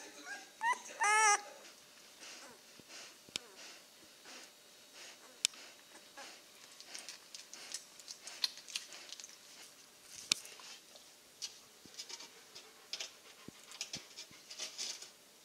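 Nine-day-old Czechoslovakian wolfdog puppy giving a few short, high-pitched squealing whimpers in the first second or so. Then faint scattered clicks and soft smacks, with a few sharper ticks.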